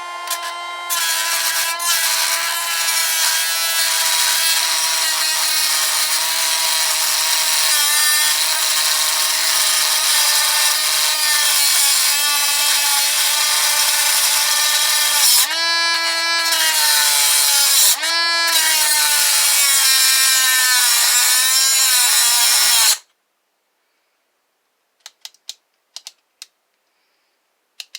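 Dremel rotary tool grinding through a Master padlock's hardened steel, a steady high motor whine over a harsh grinding hiss, its pitch sagging slightly under load with two brief drops. About 23 seconds in it cuts off suddenly: the disc binding tight in the cut and stalling the tool.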